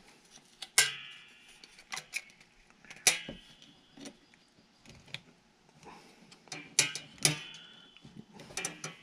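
Irregular sharp clicks and light knocks of a metal bolt and spring against a 3D-printed plastic stabilizer part as the bolt is fiddled into line, a few followed by a brief metallic ring.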